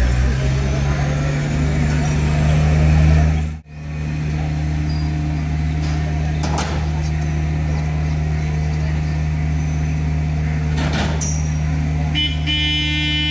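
A heavy engine running steadily with a deep hum, dropping out for a moment about four seconds in. Near the end a high horn starts to sound.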